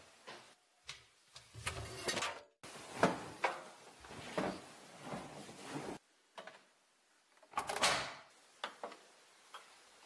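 Laundry and bed linen being handled: a run of short fabric rustles with light clicks and knocks, broken by brief quiet gaps where the scene changes.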